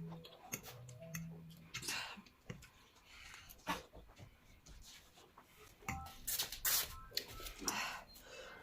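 Instant noodles being eaten: scattered slurps and small clicks, loudest about six to seven seconds in, with a short low hum of a voice near the start.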